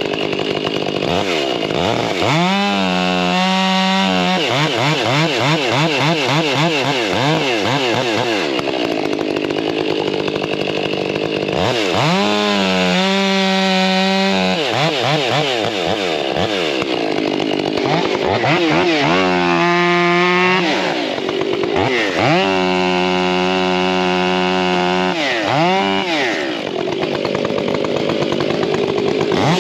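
Stihl MS461 two-stroke chainsaw bucking firewood, revving up and down four times between longer stretches of cutting under load.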